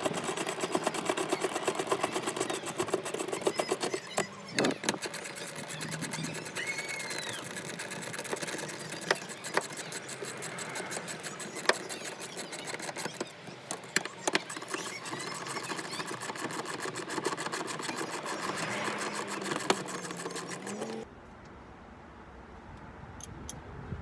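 Rapid, steady mechanical clatter, a fast even run of fine clicks with a few sharper knocks, that cuts off suddenly near the end.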